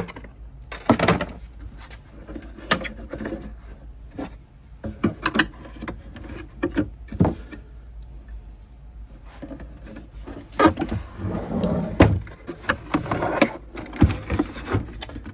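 Irregular clicks, knocks and scrapes of hands working the chassis of a 1950s Zenith tube clock radio, trying to slide it out of its cabinet.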